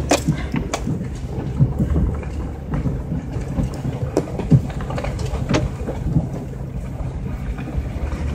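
A vehicle driving slowly over a rough dirt track, heard from inside the cab: a steady low engine and road rumble with frequent knocks and rattles as it bumps over the ruts.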